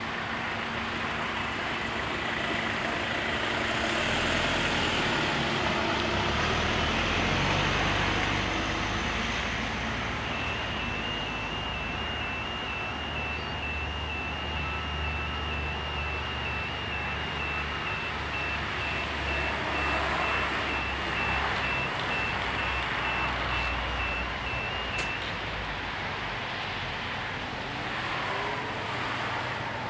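A car drives past over the crossing. About ten seconds in, the level crossing's warning bell starts ringing in a fast, even electronic beat over a low traffic rumble, and it stops about 25 seconds in as the crossing closes.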